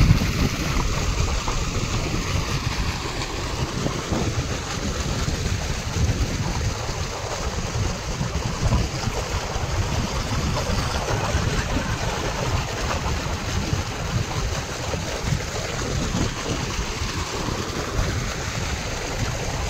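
Irrigation water gushing from a pipe outlet and rushing along an earthen field channel as a steady noise, with wind buffeting the microphone.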